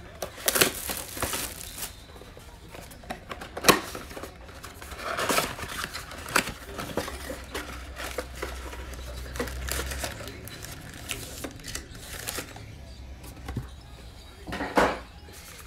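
Plastic shrink wrap crinkling and tearing off a Panini Illusions football mega box, then cardboard and paper rustling as the box is opened and the foil packs are taken out. There are a few sharp snaps and clicks, the loudest about four seconds in.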